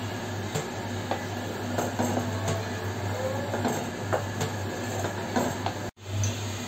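Wooden spatula stirring a milk mixture in a metal pan, with light scrapes and taps against the pan, over a steady low hum. The sound drops out for an instant near the end.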